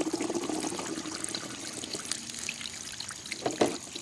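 Water pouring and trickling out of the neck of an upturned plastic gallon jug onto a wooden board, the flow growing weaker as the jug empties.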